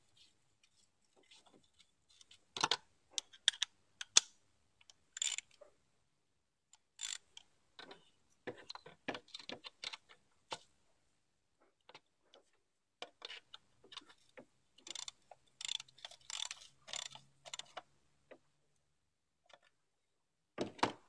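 Ratchet wrench clicking in short runs as 10 mm bolts are done up, with sharper knocks of the tool against metal engine fittings, loudest about three to four seconds in.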